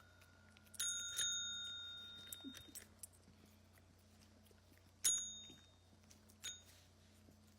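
A small metal bell struck four times: twice about a second in, with a ring that fades over a second or so, again about five seconds in, and once more softly at six and a half seconds.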